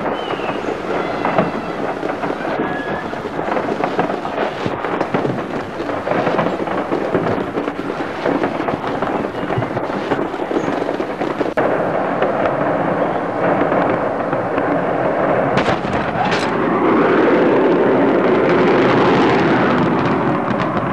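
Stored fireworks in the burning depot going off in a continuous mass of crackling and rumbling, growing to a louder, sustained rumble a few seconds before the end.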